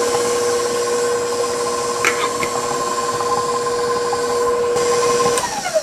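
KitchenAid stand mixer's motor running steadily with a whine, its flat beater creaming butter and sugar in the steel bowl. Near the end it is switched off and the whine falls away as the motor winds down. A small knock about two seconds in.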